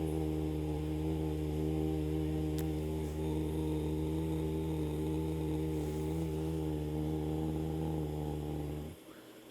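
A person humming one low, steady note as a breathing exercise, held for about nine seconds and cut off just before the end.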